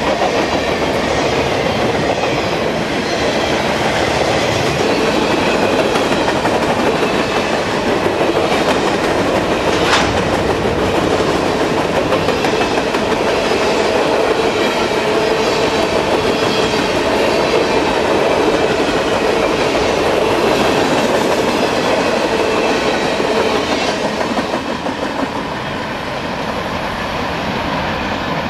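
Freight train cars rolling past close by: steady noise of steel wheels running on the rails, with a single sharp click about ten seconds in. The noise drops off over the last few seconds as the end of the train goes by.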